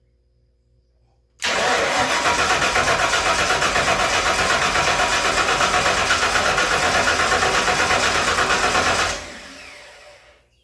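Starter motor cranking a big-block Ford V8 over for about eight seconds with an even pulsing beat, starting about a second and a half in, then winding down. The freshly mounted starter turns the engine over properly.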